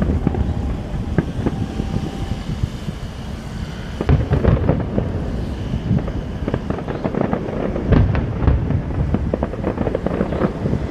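Fireworks going off in rapid succession: a dense run of bangs and crackles over a continuous low rumble, with heavier volleys about four and eight seconds in.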